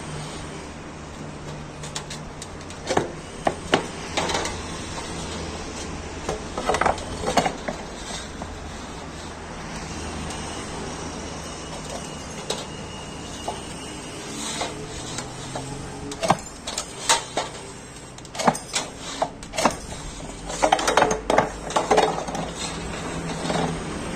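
Sheet-metal machinery: a steady low hum with several bursts of metal clanks and rattles.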